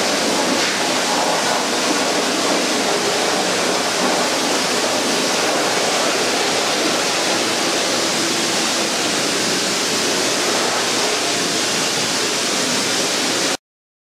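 Self-serve dog-wash station's hose nozzle spraying steadily onto a wet dog's coat and into the steel tub, an even rushing spray that cuts off abruptly near the end.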